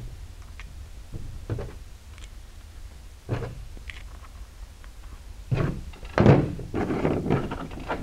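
Metal trunk lock assembly handled and knocked against a workbench: a few separate knocks and clatters, growing busier and louder in the last few seconds, the loudest about six seconds in.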